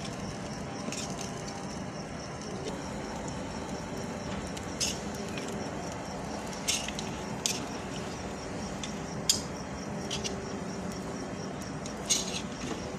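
Metal utensil scraping and clinking against metal skewers as cooked chicken tikka pieces are pushed off into a plastic container: scattered sharp clinks every second or two, the loudest about nine seconds in, over a steady background hiss.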